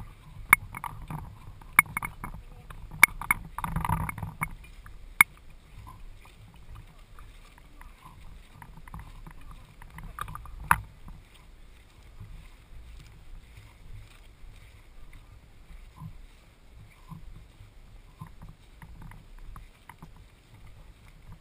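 Footsteps on grass with clothing and gear rustling as a person walks, broken by several sharp pops in the first half, about one to two seconds apart, the loudest being one near eleven seconds in.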